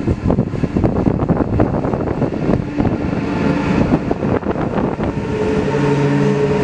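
LKAB IORE electric ore locomotive and its ore wagons passing close by on the next track: a loud rumble with rapid clattering of wheels on rail. Near the end a steady electric hum from the locomotive joins in.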